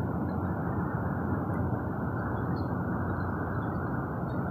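Steady, even outdoor background noise with no distinct events.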